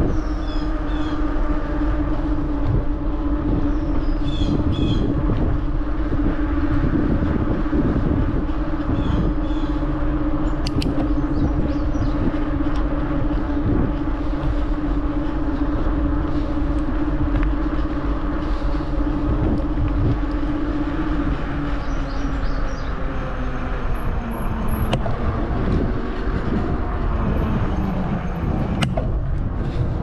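A steady low motor-like hum holding one pitch, which sags lower a little past the twenty-second mark and rises again near the end. Faint short high chirps come through now and then.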